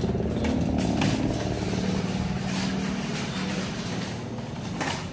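Shopping trolley being pushed along, its wheels rumbling steadily with a few short rattles and clanks.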